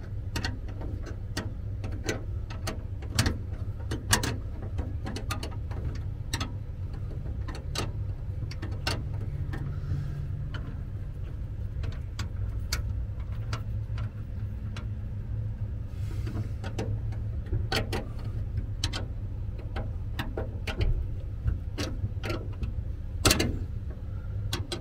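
Metal wrenches working bolts on a steel rack mount: many sharp, irregular clicks and taps of metal on metal, over a steady low hum.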